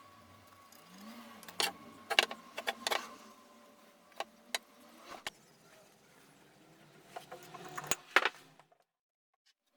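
Scattered light clicks, knocks and jingles of small hard objects being handled, over a faint steady hum; all sound cuts out abruptly near the end.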